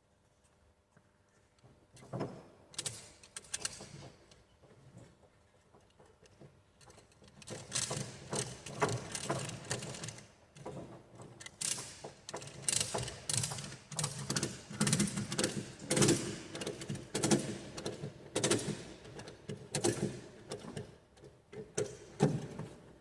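Heavy-duty ratchet strap being worked, a run of irregular mechanical clicking and rattling: a few strokes early, then a dense, quick series from about a third of the way in until just before the end.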